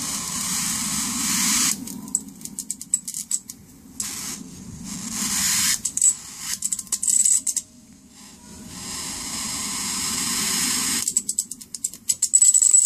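High voltage from a Sharp CRT TV's flyback transformer arcing from the anode lead to the chassis. Stretches of steady hiss alternate with rapid runs of sharp snapping sparks, about three runs in all; the last run, near the end, is the loudest.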